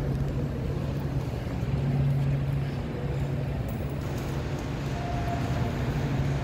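Steady low hum of an underground metro station's ambience, with a faint brief tone about five seconds in.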